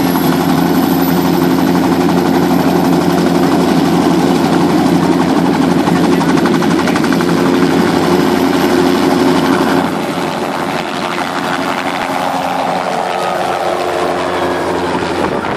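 Light two-blade helicopter running at flight speed on the ground, then lifting off: a loud, steady hum that about ten seconds in weakens and turns into a broader wash of rotor noise as the helicopter rises.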